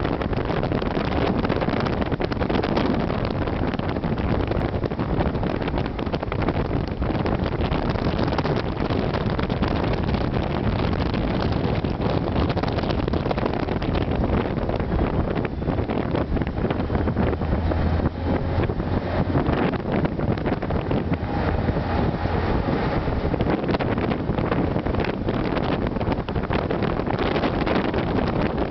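Steady road and engine noise heard from inside a moving vehicle, with wind rushing past the microphone; a low hum grows stronger for a few seconds midway.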